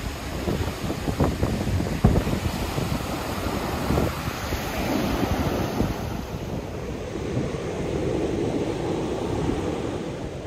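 Wind buffeting the microphone in gusts over the steady wash of ocean surf breaking on a beach.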